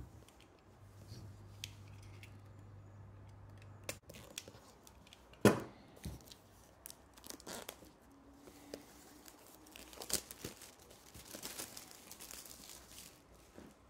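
Clear plastic shrink-wrap being torn and peeled off a Blu-ray case, crinkling, with scattered sharp clicks and knocks as the case is handled. The loudest is a single sharp knock about five and a half seconds in.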